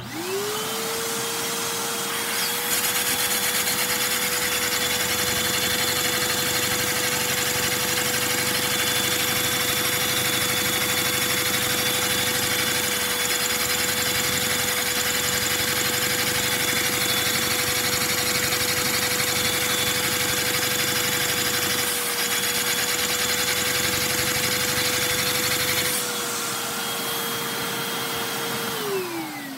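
Vacuum cleaner motor spinning up to a steady whine and powering a Lego two-cylinder overhead-valve vacuum engine. A rushing hiss of air is drawn through the engine from about two seconds in until a few seconds before the end. The whine then winds down, falling in pitch.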